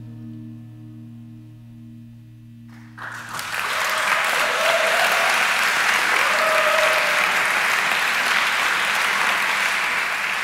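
Last electric-guitar chord ringing out and fading, then audience applause breaking out about three seconds in and carrying on steadily.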